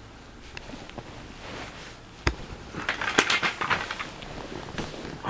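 Fabric rustling and crackling as a baby squirms and rolls against a pillow, with a sharp knock about two seconds in and then a denser burst of crackling rustles lasting about a second and a half.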